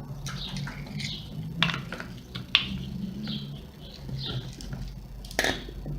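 Screwdriver and angle-grinder parts clicking and knocking as the rotor and bearings are pried loose, a few sharp metallic clicks standing out.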